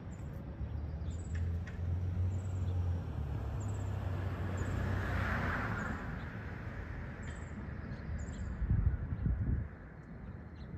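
Roller skate wheels rumbling steadily over pavement, with a stronger patch of rumble near the end. Short high bird chirps come about once a second in the first half, and a hiss swells and fades around the middle.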